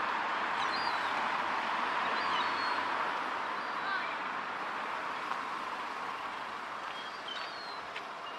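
Busy street ambience: a steady wash of passing road traffic with indistinct voices and occasional short bird calls.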